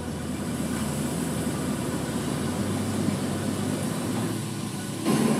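A ridable miniature steam locomotive (mini SL) running on its narrow-gauge track, a steady rumbling run that gets louder about five seconds in.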